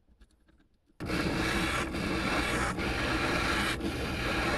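Ridgid oscillating spindle sander running as the edge of a thin wooden board is pressed against a homemade sanding stick, sandpaper wrapped on a 1/2-inch dowel. The steady sanding noise starts suddenly about a second in and dips briefly about once a second.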